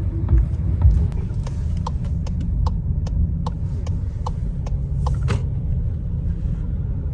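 Steady low rumble with a run of sharp ticks, about three a second, from about one second in to five and a half seconds in.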